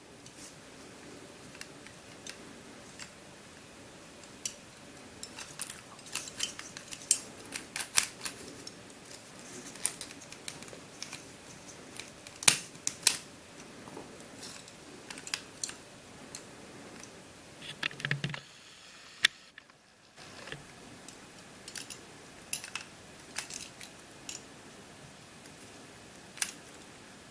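Plastic pieces of an Evgeniy & Calvin's Curvy Dino twisty puzzle clicking and clattering as it is taken apart by hand: irregular sharp clicks, with a brief pause a little past the middle.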